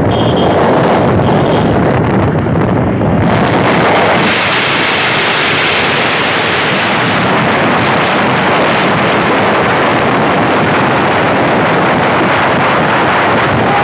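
Steady, loud rush of wind on the microphone, turning fuller and brighter about three seconds in.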